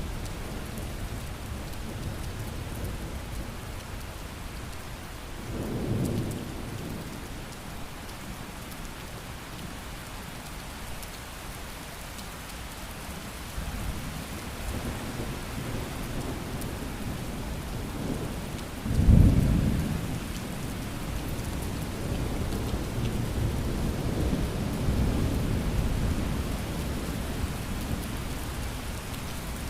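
Steady rain falling, with thunder: a short rumble about six seconds in, a loud thunderclap about nineteen seconds in, then a longer rolling rumble.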